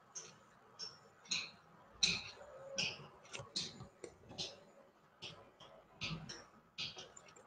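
Computer mouse clicking while drafting in CAD software: a string of short, irregular clicks, about two or three a second.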